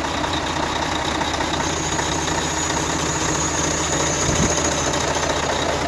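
Heavy truck's diesel engine idling steadily; the truck is being kept running all day.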